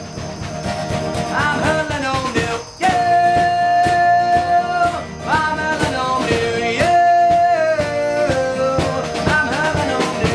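Live rock band with strummed acoustic guitars and drums, and a male lead voice holding long notes that slide up into pitch, the longest lasting about two seconds.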